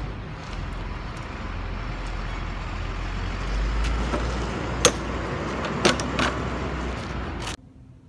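Alpine stump grinder's small gas engine running hard as its cutting wheel grinds out a stump, a steady noisy rumble. Three sharp cracks come in the second half, and the sound cuts off suddenly near the end.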